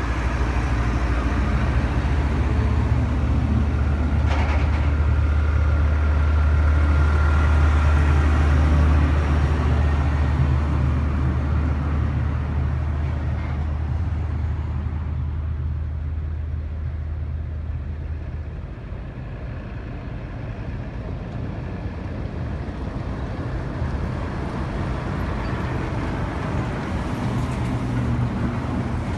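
Heavy-haul tractor trucks pulling gas-plant modules on multi-axle trailers drive past with a deep diesel rumble and tyre noise. The rumble is loudest about eight seconds in and fades after about eighteen seconds, leaving quieter road noise, with a single sharp knock about four seconds in.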